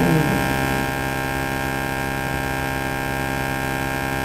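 Steady electrical mains hum with a stack of higher overtones, unchanging throughout. A brief snatch of a woman's voice is heard at the very start.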